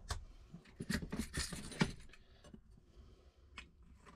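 Metal parts of a key-cutting machine being handled: scattered clicks and clatter as the key carriage and clamp are moved, busiest about one to two seconds in.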